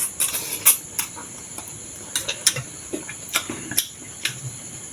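Close-up eating sounds: irregular soft clicks and smacks of chewing, about ten in a few seconds, over a steady high-pitched background whine.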